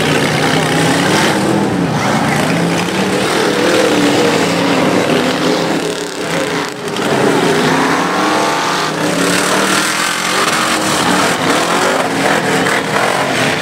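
A 4x4 mud truck's engine revving hard as it churns through a mud pit, its pitch rising and falling over and over, with a short drop in level about halfway through.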